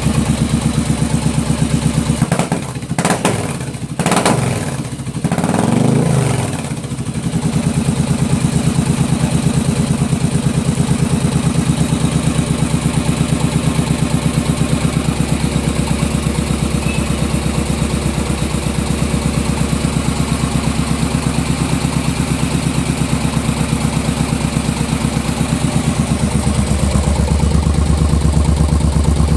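Yamaha Virago 1100's V-twin engine idling through its exhaust with an even, throbbing beat. It is blipped with the throttle a few times about three to six seconds in, then settles back to idle.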